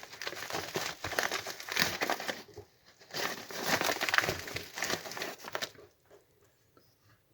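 Plastic packaging crinkling and rustling in two spells as it is handled, falling quiet about six seconds in.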